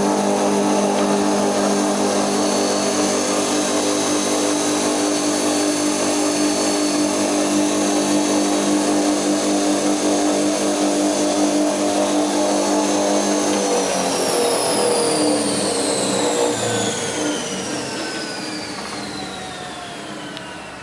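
Pagonu PP 101 spindle moulder running steadily with an even hum and whine, then switched off about fourteen seconds in and spinning down, its pitch falling as it slows.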